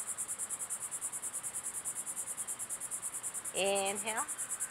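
Insects chirping in the grass: a steady, high-pitched pulsing trill at about eight pulses a second.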